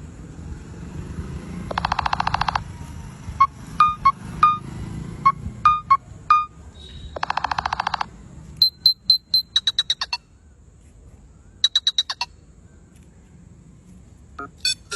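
A Nothing Phone 1 playing its synthetic ringtone sounds through its speaker, in separate bursts with gaps between. First come buzzy pulsed tones, then short pitched blips, then quick runs of high ticking clicks.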